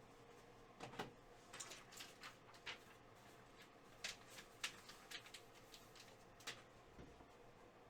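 Quiet, scattered clicks and rustles of sports-card packs and cards being handled.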